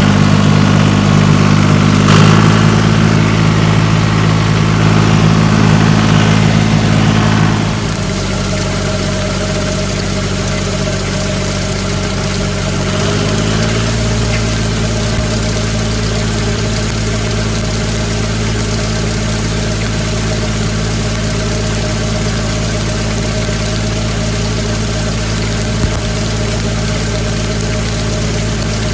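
Tractor engine running steadily under load while driving a PTO fertilizer spreader. It drops a little in level about eight seconds in, and its pitch steps up slightly around thirteen seconds.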